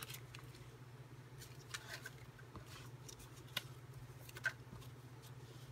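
Small paper and fabric scraps rustling and clicking lightly as hands sort through them on a cutting mat, a few faint ticks and rustles spread irregularly over a steady low hum.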